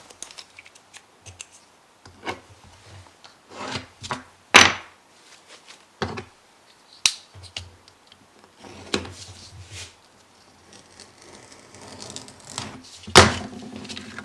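Pieces of wood and veneer being handled on a workbench: scattered knocks, taps and rubbing, with a sharp knock about four and a half seconds in and another near the end.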